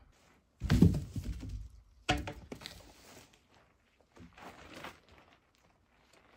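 Logs being handled on a log pile: two heavy wooden thuds about half a second and two seconds in, then fainter knocks and scuffing footsteps as a log is lifted.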